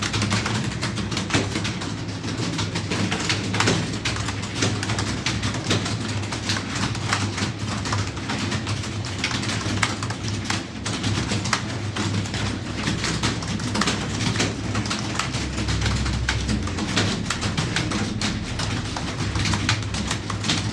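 Rapid, irregular clicking of computer keyboard keys as someone types steadily, over a steady low hum.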